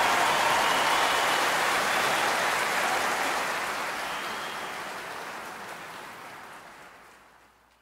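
Large crowd applauding and cheering, with a few high whistles, fading out to silence over the last few seconds.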